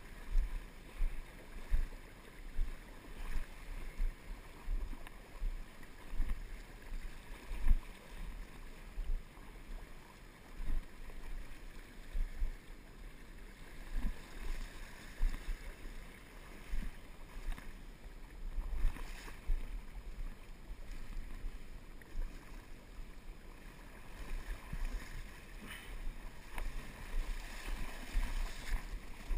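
River water rushing and sloshing around a wading angler, close to the camera, with frequent irregular low thumps on the microphone.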